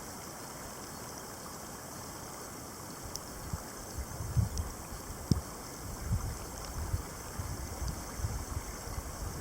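Wind buffeting the microphone in irregular low gusts from about three and a half seconds in, over a steady outdoor hiss with a few faint ticks.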